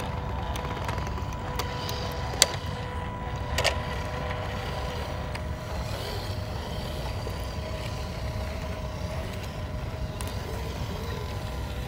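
Steady whine of small electric RC rock crawler motors under a low rumble, with two sharp clicks two to four seconds in.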